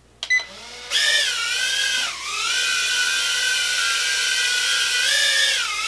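A short click, then from about a second in the Holyton HS330 mini quadcopter's tiny motors and propellers spinning up and lifting it off: a high-pitched whine that dips in pitch around two seconds in, holds steady, then rises and dips again near the end as the throttle changes.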